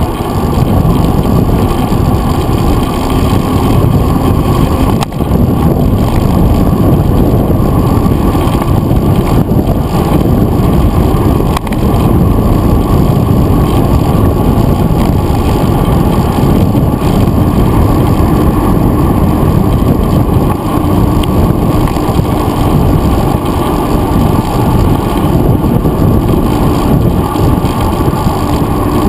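Wind buffeting and tyre rumble from a mountain bike rolling on asphalt, picked up by a handlebar-mounted GoPro Hero 2: a loud, steady, muffled rush, with a couple of brief knocks about five and twelve seconds in.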